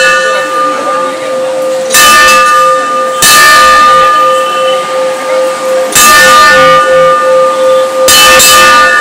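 Large brass temple bell rung by hand, struck four times, each strike ringing on in a steady tone that carries over into the next.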